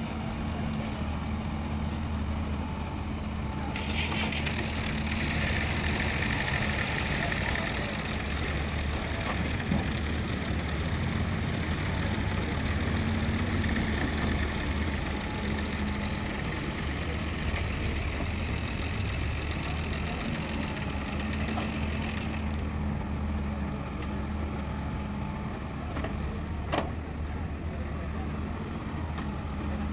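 Diesel engines of a Volvo tracked excavator and a farm tractor running steadily while the excavator digs and loads silt. A higher hiss joins about four seconds in and drops away about two-thirds of the way through. There is one sharp knock near the end.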